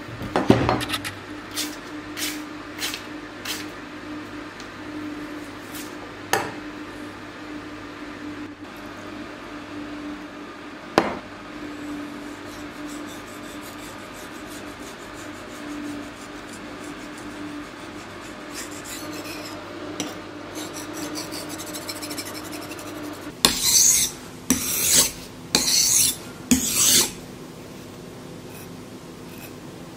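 Steel knife blade drawn across a wet whetstone, a gritty scraping rasp in repeated strokes, with about four long, loud strokes near the end. Light knocks and taps come at the start as the stone and a glass water bowl are handled on the table.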